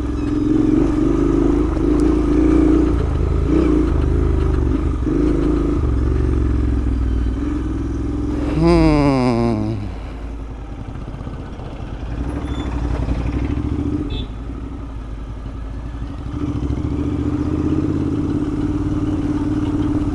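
Royal Enfield 650 parallel-twin motorcycle running along a rough dirt track at steady revs. About nine seconds in, the engine note peaks and then drops steeply in pitch as the revs fall. It then runs quieter at lower revs and picks up a little near the end.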